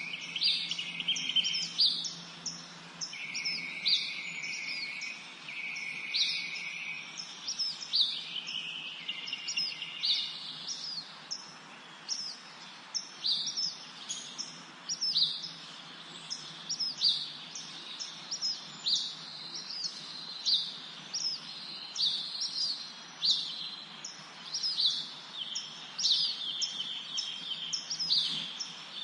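Several songbirds chirping and singing in a forest chorus: many short, high, sharp chirps about one a second, overlapping longer trilling phrases in the first ten seconds or so.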